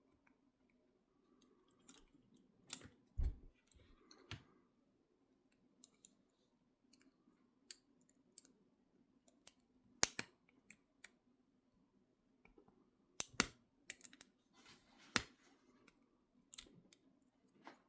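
Irregular small metallic clicks and taps of a tool working the double lock of Peerless 700C handcuffs, a few clicks louder than the rest.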